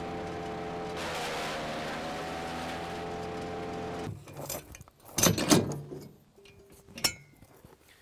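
Range Road RR400 wood chipper's engine running steadily while leafy branches are fed through. About four seconds in it gives way to a few sharp metal clunks and clicks from the chipper's tow-hitch ball coupler being worked.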